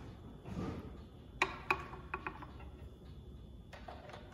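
Screwdriver and terminal hardware clinking against a motorcycle battery terminal as a cable lug is screwed down: a short rustle of handling, then two sharp ringing metallic clinks about a second and a half in, followed by a few lighter clicks.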